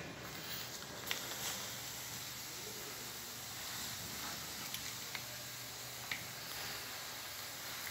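Hose-fed disinfectant sprayer misting inside a lift car, a steady hiss with a few faint clicks.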